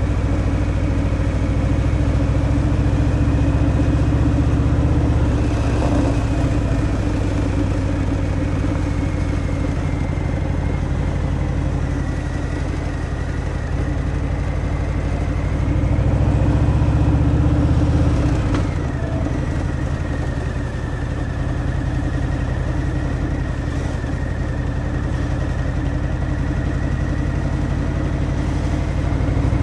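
Harley-Davidson Fat Boy's Milwaukee-Eight 114 V-twin running on its stock exhaust while riding, heard from the rider's seat. The engine note holds steady, swells under throttle for about two seconds past the middle, then drops back as the throttle eases.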